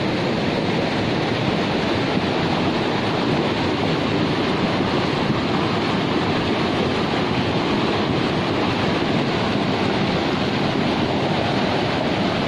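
Fast-flowing floodwater of a swollen river rushing steadily and loudly, without a break.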